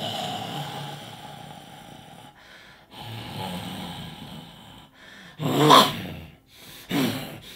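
A man's vocal impression of a displacer beast: two long, rough, noisy growls, then a loud pitched cry about five and a half seconds in and a shorter one near the end.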